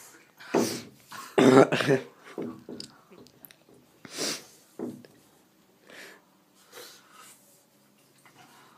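Several coughs and throat-clearing from people whose mouths are burning from a ghost chili pepper, loudest in the first two seconds and growing fainter and more spaced out after that.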